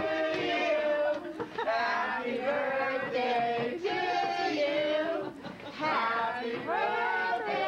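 A crowd of voices calling out together in drawn-out, sing-song tones, with many people overlapping, as an excited group greets and hugs someone. Briefly quieter about five and a half seconds in.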